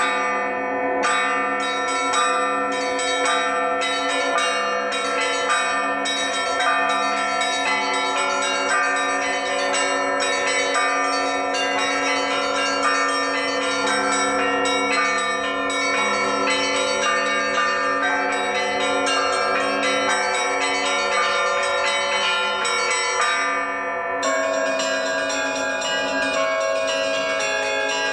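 A set of Russian Orthodox church bells cast by the LITEX foundry, hand-rung in a peal. Deep bells toll under a busy pattern of mid-size and small chiming bells, struck several times a second. About 24 seconds in there is a short dip, after which the ringing goes on with a brighter tone.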